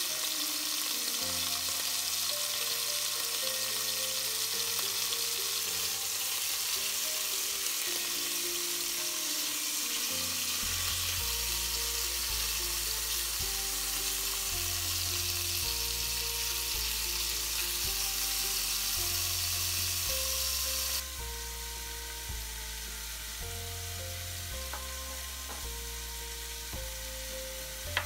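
Beef chunks sizzling as they sear in hot oil in a pot while being turned with tongs. The sizzling drops to a lower level about three-quarters of the way through. Background music with a bass line plays over it.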